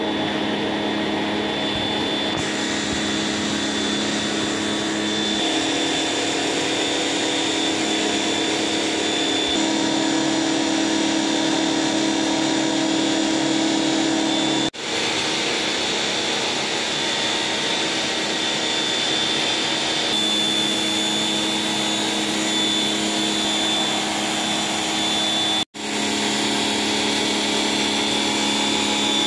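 Pressure washer running steadily, its water jet hissing onto a pebble-stone floor. The sound breaks off for a split second twice.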